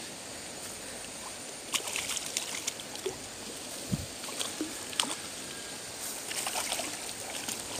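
River water trickling and sloshing steadily at a grassy bank, with scattered light clicks and ticks.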